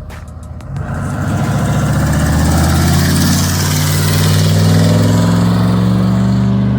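Dodge Ram 1500 pickup's engine revving up about a second in, its pitch climbing slowly and then held high and steady.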